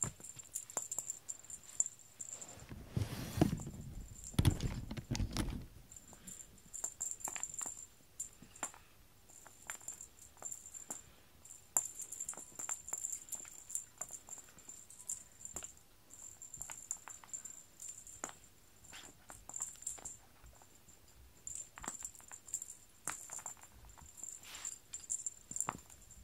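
Feather wand cat toy being flicked and dragged over a foam floor mat: a run of quick rustles and light taps that come and go. A louder low rumble about three to five seconds in.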